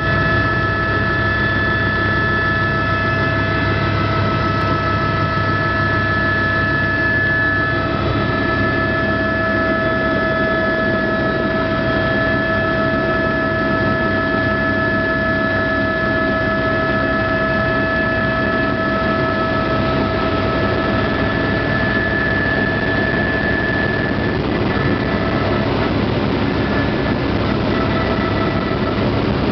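Helicopter engine and rotor noise heard inside the cabin in flight: a loud, steady drone with a high whine held on a few steady pitches.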